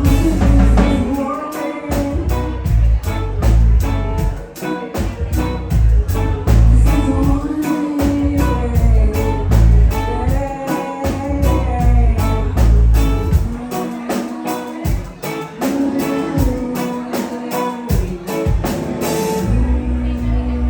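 Live band playing a song with drums, bass, guitar and keys, with sung vocals over the top; the cymbals drop out near the end.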